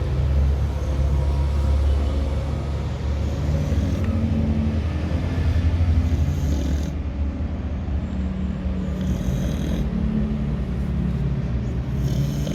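A sleeping dog snoring loudly, with a low, rough snore running on steadily.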